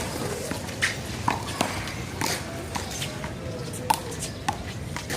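One-wall handball rally: a string of sharp smacks at uneven intervals as the small rubber ball is struck by hand and rebounds off the wall and the pavement.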